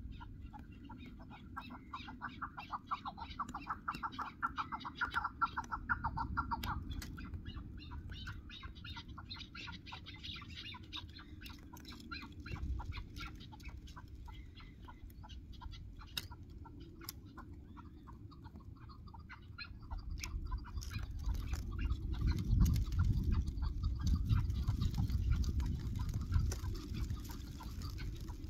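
Chukar partridges calling: a fast, rhythmic run of clucking notes for the first six seconds or so, then softer, higher calls keep going. A low rumble comes in for the last several seconds.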